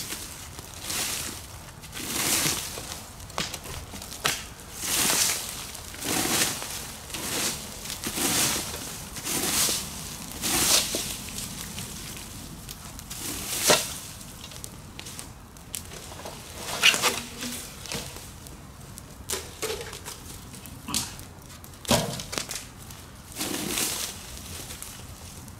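Plastic leaf rake dragged through dry leaves and dirt in repeated scraping strokes, roughly one a second, with a few sharp clicks among them.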